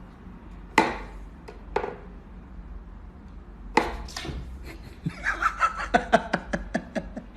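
A few sharp knocks, then a quick run of short laughs about five seconds in.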